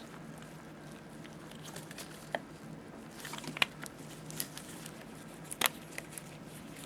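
Faint plastic handling: a few scattered small clicks and light scraping as a removable plug is pushed flat and slid onto a universal power adapter's contacts.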